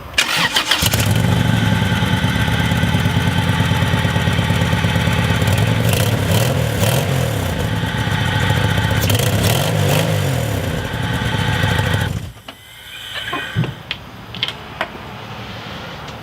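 A Honda B18C four-cylinder engine cranks briefly, catches and runs loudly with a wavering idle, then is switched off about twelve seconds in. It is running rough from an exhaust leak at a two-piece header, and with no oil pressure reaching the head.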